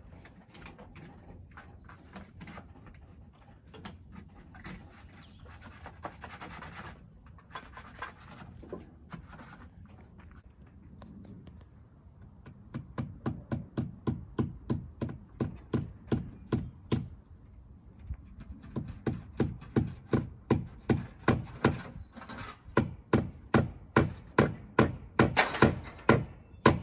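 Quiet handling and rubbing sounds, then long runs of hammering, evenly spaced strikes at about two to three a second, getting louder towards the end.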